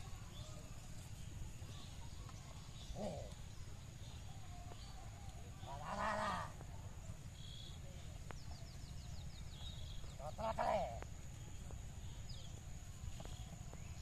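Outdoor field ambience: a steady high-pitched whine, faint bird chirps, and three short pitched calls about 3, 6 and 10 seconds in, the middle and last ones louder.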